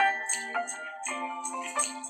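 Background music: held notes over a quick, light percussion beat, about four strikes a second.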